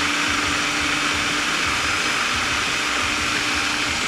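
Electric food processor running steadily on low, blending a green chili-and-herb zhug paste while oil is added, with a steady low hum under the whirring.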